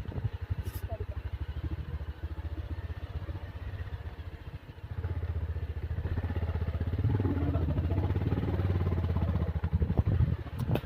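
Motorcycle engine running with a steady, rapid firing beat, growing louder about five seconds in.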